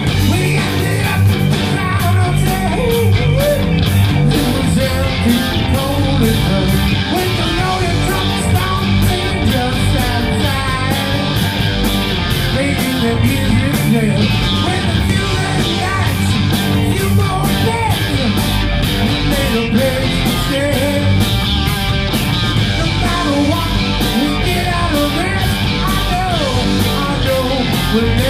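Rock band playing live: electric guitars, drum kit and keyboard, with a man singing rock vocals into a microphone over a steady, driving beat.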